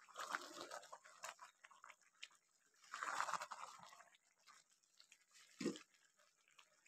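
Metal spatula stirring pulao rice, peas and potato through simmering stock in a pan, its water close to drying up. There are two stirring strokes, one right at the start and one about three seconds in, with light clicks in between, and a short low thud near the end.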